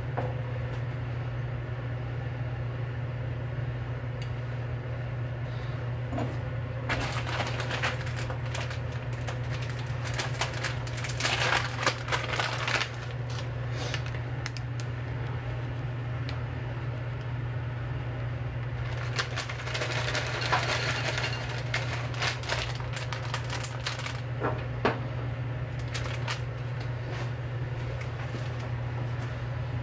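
Clattering and clicking from a ceramic bowl and utensils as toppings, noodles and ice cubes are put in, in three bursts over a steady low hum.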